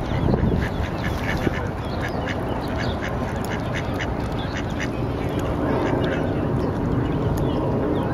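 Mallard ducks and their ducklings calling, a run of short, high calls coming several times a second, over a steady low background rumble.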